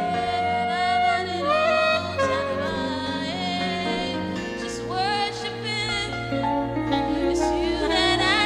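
Slow gospel worship music: a saxophone plays the melody, its notes sliding up into pitch, over sustained chords, with a low bass coming in about halfway through.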